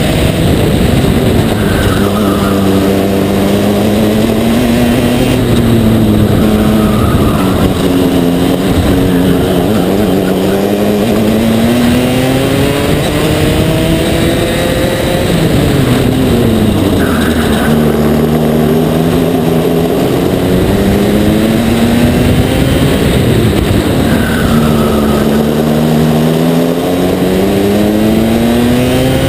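Aixro XR50 rotary kart engine at racing speed, heard onboard: the revs climb along the straights and drop sharply several times as the driver lifts for the corners.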